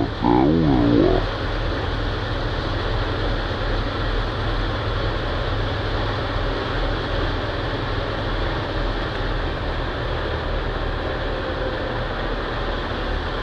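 Engine of a small tracked farm vehicle running steadily at a constant speed, a low throbbing rumble. About the first second is covered by a louder pitched sound that rises and falls.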